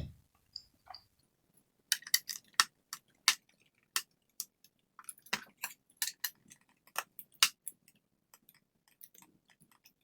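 Sharp, irregular clicks of a ratcheting screwdriver set to counterclockwise, backing out a small screw on a laptop's bottom panel; the clicks come in a loose run from about two seconds in and thin out near the end.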